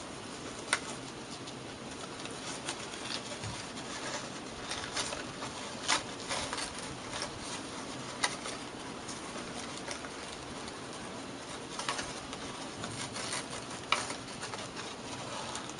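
Faint rustling and a few scattered light ticks of hands tying a ribbon bow on a paper craft, over a steady low hiss.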